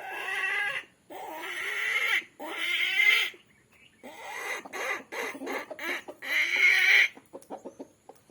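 Two long cock-a-doodle-doo crows, each broken into three or four drawn-out parts, followed near the end by a quick run of short clucks.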